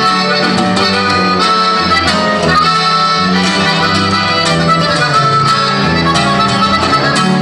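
Norteño band playing live: button accordion carrying the melody over guitar and electric bass.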